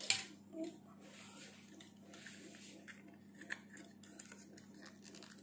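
Faint rustling and a few small clicks of the packaging of a new RAM module being opened by hand, with a sharper click at the start.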